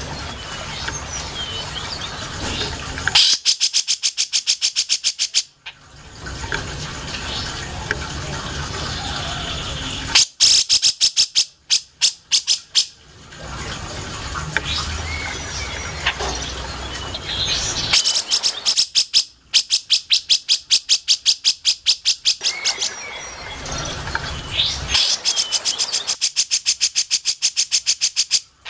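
Grey-cheeked bulbul (cucak jenggot) singing: four bursts of fast, rapidly repeated high notes, each lasting a few seconds, with softer scattered chirps over a steady hiss between them.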